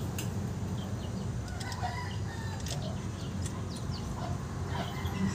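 A rooster crowing and chickens clucking, with a few faint clicks and a steady low hum underneath.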